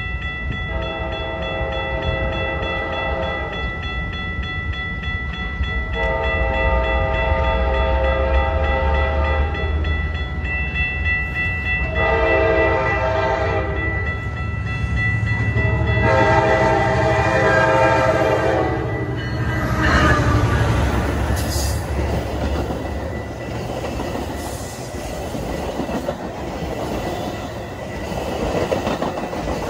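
Metra commuter train's locomotive horn blowing the grade-crossing signal of two long blasts, one short and one long, over the steady ringing of the crossing-signal bells. From about 20 seconds in, the train passes close by, its cars rumbling and clattering over the rails.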